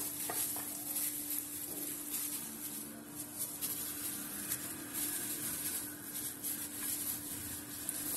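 A plastic-gloved hand mixing and rubbing pieces of fish with spices and gram flour in a glass bowl: a soft, shifting rustle and squish with small taps, over a steady hum.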